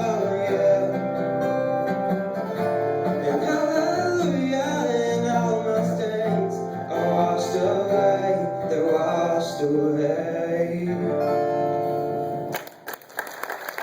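A man singing a worship song with guitar accompaniment, the music ending shortly before the close. Applause from the congregation begins near the end.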